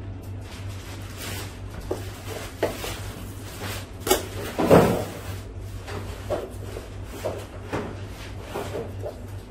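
Food handling: crinkling of a vacuum-pack plastic bag, then a raw hanger steak slapped down onto a cutting board about halfway through, the loudest sound. Light knocks and scrapes of a boning knife on the board follow as the meat is trimmed, over a steady low hum.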